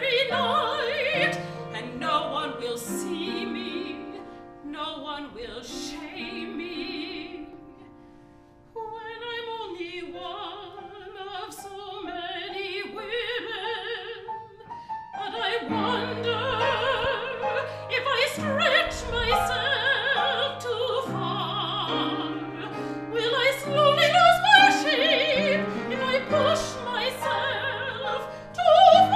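Operatic singing with piano accompaniment. A single voice with vibrato carries a quieter stretch about a third of the way in, then the music grows louder with several voices together from about halfway.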